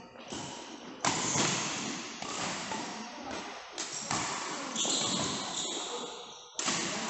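Badminton rackets striking a shuttlecock in a rally: a series of sharp hits at irregular intervals, each trailing off over about a second, the loudest about a second in and again near the end.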